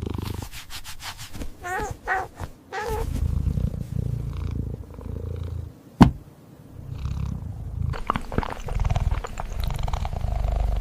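A cat purring in rhythmic low stretches, with a few short wavering mews about two seconds in and a single sharp click about six seconds in. Small crunchy clicks of eating join the purring in the last few seconds.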